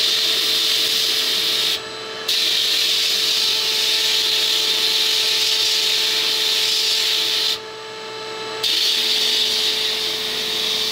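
Sandblast cabinet blast gun spraying abrasive onto a pistol slide: a loud, steady hiss that cuts out twice, briefly about two seconds in and for about a second near the eight-second mark, as the trigger is let off. A faint steady hum runs underneath.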